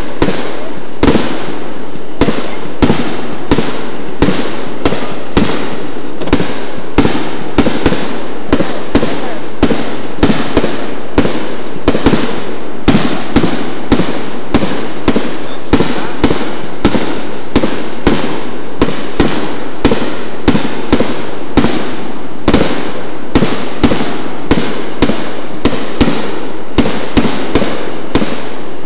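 Ground-launched consumer firework cake firing a long, even run of small shots, about three pops every two seconds, over a steady high-pitched drone.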